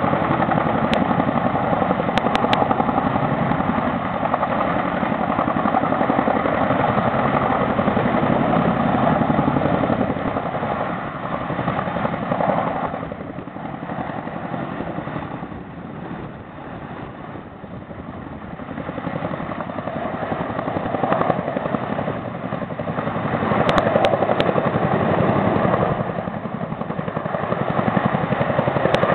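Boeing CH-47 Chinook tandem-rotor helicopter hovering with a load slung beneath it on a cable: a steady, rapid rotor chop over turbine noise, dropping somewhat about halfway through and swelling back up near the end.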